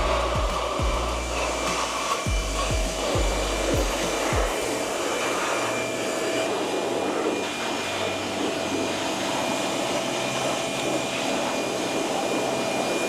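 Steady rushing hiss of a spray or air jet washing down and blowing dry a degreased car engine and transmission.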